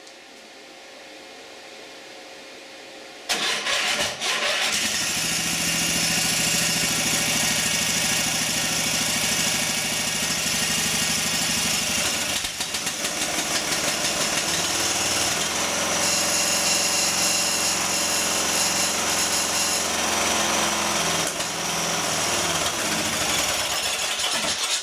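A Briggs & Stratton lawn-tractor engine is cranked and catches a few seconds in. It runs steadily for about twenty seconds, then cuts off abruptly near the end. The owners suspect its fuel solenoid.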